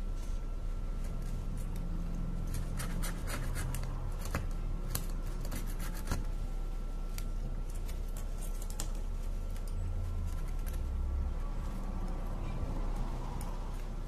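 Gloved hands handling and pressing a Realme C3 phone's metal mid-frame on a silicone mat: scattered scratches and small clicks, busiest in the first half, over a steady low hum.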